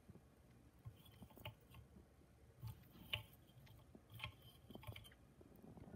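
Faint, scattered clicks and taps of metal tongs setting lit coal cubes into a Lotus heat management device on a hookah bowl.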